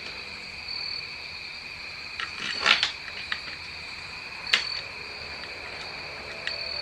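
A few small sharp clicks and taps of screws and metal trim pieces being handled while fitting a motorcycle windshield: a cluster two to three seconds in, one about four and a half seconds in, and one near the end. Under them runs a steady, high-pitched trill.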